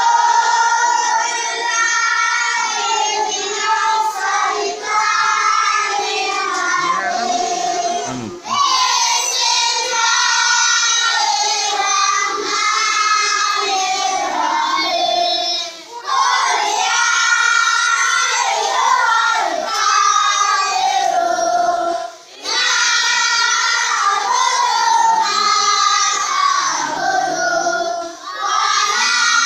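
A large group of children chanting together in unison, in long phrases of about six to eight seconds, each followed by a short breath-pause before the next.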